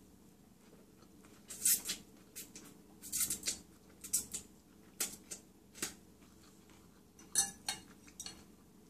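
Eating a bowl of ramen with a fork: a dozen or so short, sharp sounds of the metal fork clinking and scraping against the glass bowl, mixed with wet slurps of noodles.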